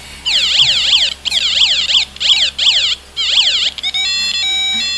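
Homemade electronic alarm sounding a rapid run of falling chirps in several bursts with short breaks. Near the end it switches to a stepped two-tone pattern, one of its adjustable alarm sounds.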